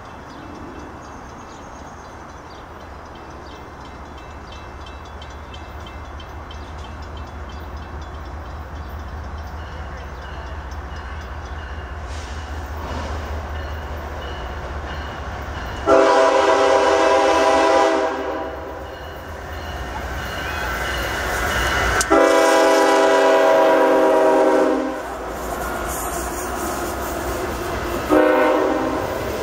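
Diesel freight locomotive approaching with a low rumble that slowly grows louder, then sounding its air horn in two long blasts about halfway through, a few seconds apart, with a third starting near the end as the freight cars begin rolling past.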